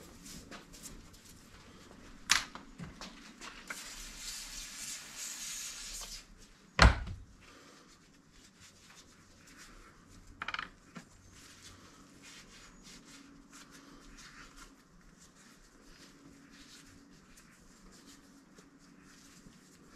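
Hand work on metal swivel-hub parts at a workbench: a sharp click, a rough rubbing noise for a couple of seconds, then a loud knock of a part being set down, followed by a short scrape and faint small clicks of handling.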